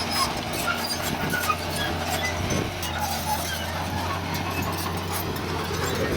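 Heavy construction machine's diesel engine running steadily, with scattered metallic clinks and squeaks over it.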